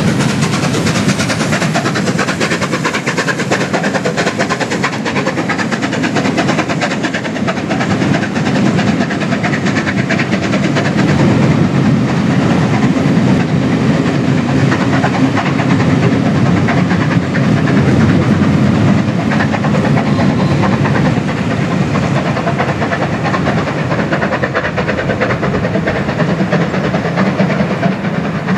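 Steam-hauled train running past close by: a continuous clatter of wheels on the rails with a rush of steam, a little louder through the middle.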